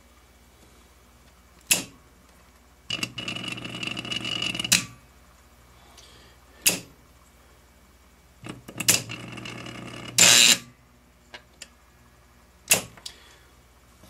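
HVAC contactor coil energised on low voltage, buzzing for about two seconds at a time, twice, while the armature hangs without pulling in solidly; the second buzz ends in a loud burst. Sharp clicks come in between as the coil lead is touched on and off and the armature drops. Such a hum without a solid pull-in is the sign of low coil voltage or a worn, dragging armature, and here it is low voltage.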